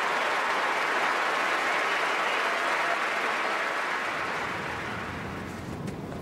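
A tennis crowd applauding after a point is won, the clapping thinning and dying away over the last couple of seconds.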